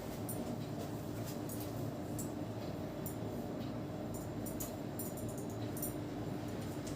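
Hands rubbing and working through hair and scalp during a head massage: scattered soft crackles and clicks over a steady background hum.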